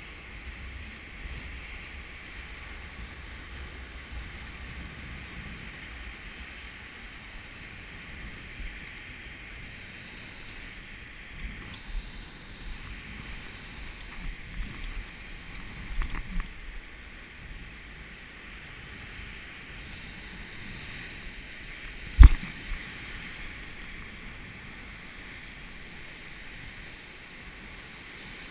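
Waves breaking and washing over rocks with wind on the microphone, a steady sea noise. A few small knocks come around the middle, and one sharp, loud knock about two-thirds of the way through.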